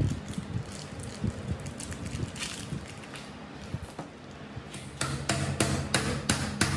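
Hammer blows on a tube drift, driving a ball bearing onto the shaft of the cutter's electric-motor armature. They come as a steady train of sharp metallic taps, about three to four a second, starting about five seconds in. Before that there are a few light clicks of the bearings being handled.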